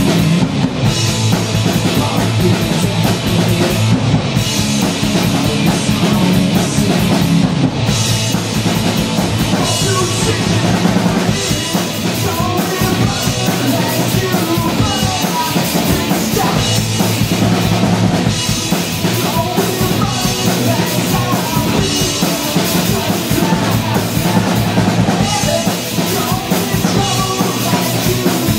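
Live punk rock band playing loud: electric guitar and a drum kit beaten hard, without a break.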